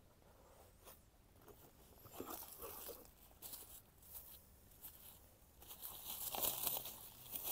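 Packaging around rose seedlings being handled and opened, crinkling and tearing. It is faint at first, with scattered rustles from about two seconds in that grow denser and louder over the last two seconds.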